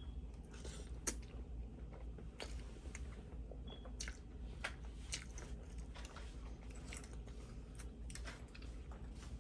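A person chewing a big mouthful of spaghetti close to the microphone, with irregular soft wet mouth clicks and smacks.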